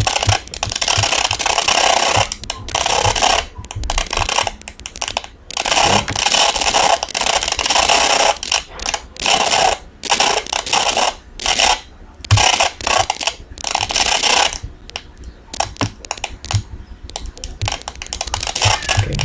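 Effects-processed audio output from a Simulink multi-effects processor simulation with the flanger gain raised. It comes as a noisy hiss and crackle in uneven bursts with short breaks between them.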